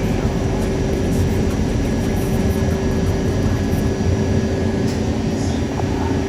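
New York City Subway D train heard from inside the car while running: a steady loud rumble of wheels and rails with a constant hum tone over it.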